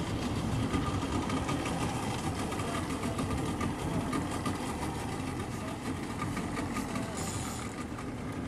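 Outboard motor idling steadily, with a brief hiss about seven seconds in.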